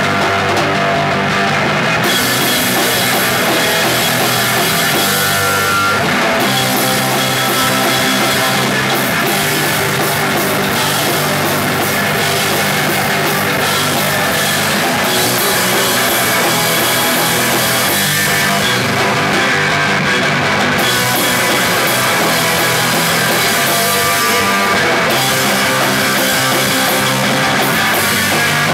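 Punk rock band playing loud: electric guitar, bass guitar and drum kit.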